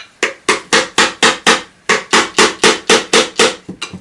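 Rapid, even hammer taps on a vacuum cleaner motor's housing, about four a second, with a short break near the middle and two lighter taps at the end. The taps are an attempt to knock the motor's end cover loose.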